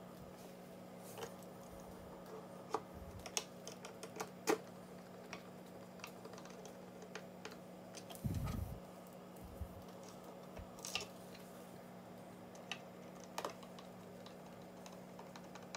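Faint, scattered clicks and taps of a screwdriver and small screws against a hard plastic case as a module is screwed down, with one dull thump about eight seconds in. A steady low hum runs underneath.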